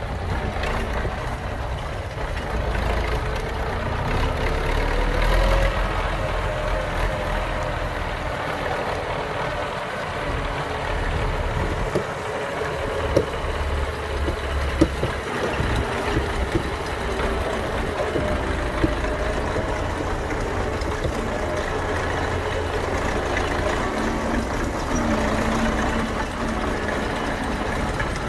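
Belarus 825M tractor's diesel engine running steadily as it pulls a loaded cassava trailer, with a few sharp knocks now and then.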